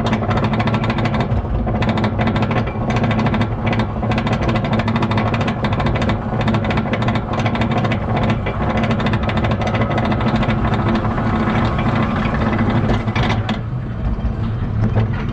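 Steel roller coaster train being hauled up a chain lift hill: rapid, continuous clacking of the anti-rollback ratchet over a steady low drone of the lift chain. The clacking dies away near the end as the train reaches the crest.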